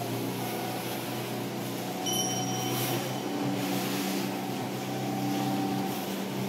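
Wooden boat's engine running steadily, heard from inside its wheelhouse while under way through rough, windy sea, with a hiss of wind and water over the engine's drone. A faint thin high tone comes in about two seconds in and lasts about a second and a half.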